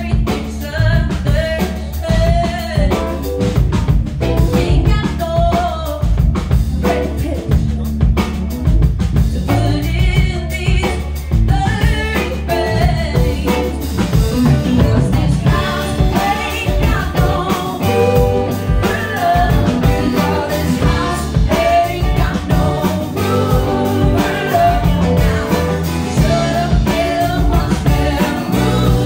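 Live band playing a song: a woman sings lead over drums, electric guitars and keyboards.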